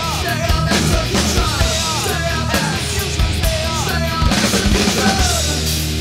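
Loud rock song with singing over a drum kit and bass; the singing drops out near the end, leaving held chords.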